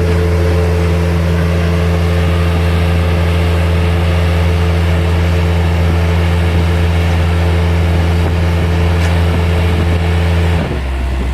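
Bobcat T140 compact track loader's diesel engine running steadily at high revs, then dropping to a lower engine speed about ten and a half seconds in.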